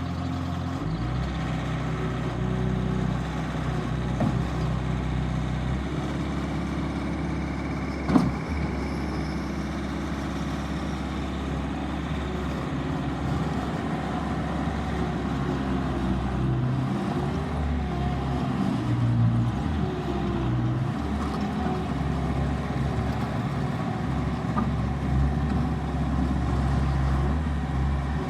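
Bobcat T550 skid steer's diesel engine running, its pitch shifting up and down as the engine speed changes, with a single sharp clank about eight seconds in.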